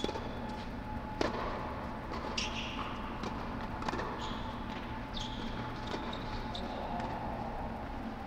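Tennis balls knocking on a hard indoor court: several sharp single knocks, the loudest about a second in, with short high squeaks of shoes on the court, over a steady background hum.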